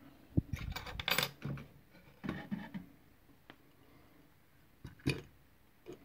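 Small metal clinks and knocks from a lock cylinder and lock tools being handled and set down on a metal tray: a quick clatter about a second in, then a few single taps.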